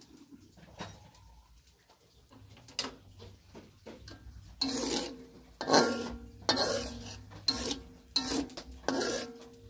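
Metal spatula scraping and knocking around a steel wok while stirring, the pan ringing after each stroke. The strokes start about halfway in and come roughly once a second, after a few faint clicks.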